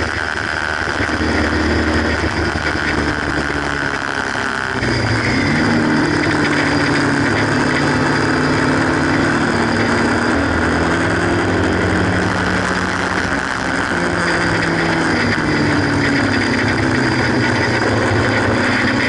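Haynes Roadster 1800 kit car's engine running hard on track, heard on board over steady road and wind noise. The engine note rises and falls with the throttle, jumping up sharply about five seconds in and dropping away a couple of times later on.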